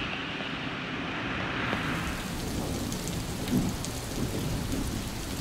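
Steady rain falling on a wet street and pavement. About two seconds in, the hiss turns brighter, with scattered drips ticking.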